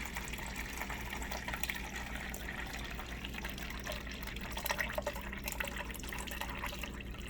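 Refrigerator water dispenser running steadily into a plastic cup, with occasional hit-and-miss spurts as trapped air purges from a newly installed water filter.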